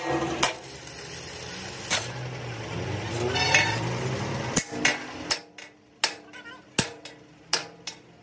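Metal being struck with a hammer: a string of sharp, ringing blows, about two a second, starting a little past halfway. Before them a steady machine hum with a few scattered knocks.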